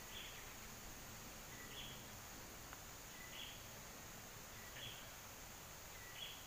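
Faint bird call repeated about every second and a half: a short steady note, then a higher rough burst, over a steady high hiss.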